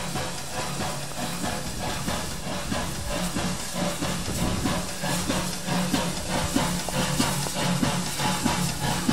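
Steam hissing steadily from a Danish F class 0-6-0T tank locomotive, No. 656, as it eases slowly along the platform, with a low steady hum underneath.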